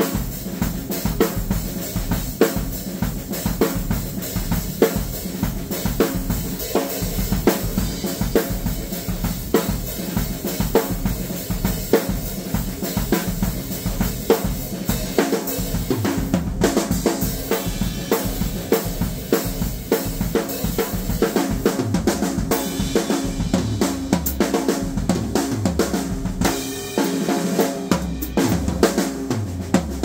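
Vintage Star drum kit (13-inch and 16-inch toms, 22-inch bass drum) with a 1971 Ludwig Supraphonic snare and cymbals, played with sticks in a continuous beat of snare, bass drum and hi-hat/cymbal strokes. Lower drum notes come in more often in the last several seconds.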